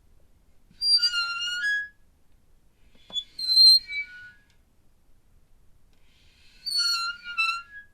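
Squeaky metal hinge creaking three times, each a high, drawn-out squeak of about a second whose pitch wavers and steps as it swings, with pauses between.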